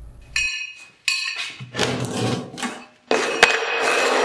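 Laser-cut steel plates being handled on a work table: a short ringing metallic clank about half a second in, then scraping and rubbing with a few sharp knocks as a large plate is slid and shifted across the table.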